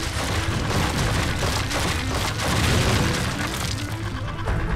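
Cartoon action sound effects: booms and crashing rubble over a dramatic background score.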